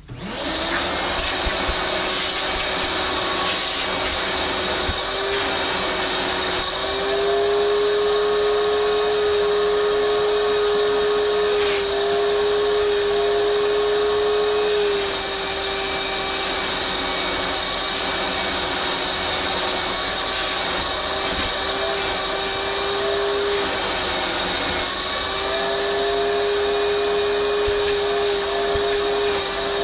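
Vacuum cleaner starting up and running steadily, its motor hum stepping up and down a little in pitch now and then.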